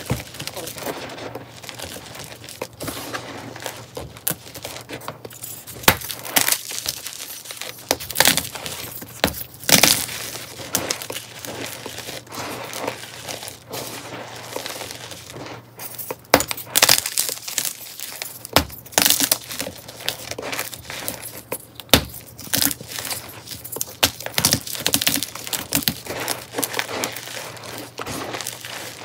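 Hands crushing and crumbling blocks of pink chalky powder: steady crackly crunching, with many sharp snaps as chunks break and soft sifting of loose powder between them.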